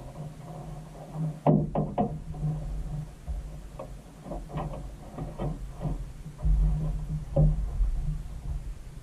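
Scattered knocks and clatter from handling a spinning rod and landing net in a small boat while fighting a fish, over a steady low rumble. The knocks bunch about a second and a half in and again between four and six seconds in.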